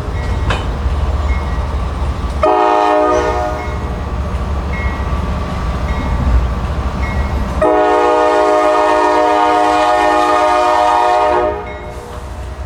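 Diesel locomotive horn sounding a shorter blast about two seconds in, then a long blast of about four seconds, over the steady low rumble of the GE AC44C6M's diesel engine pulling out. Between the blasts its old mechanical bell rings faintly.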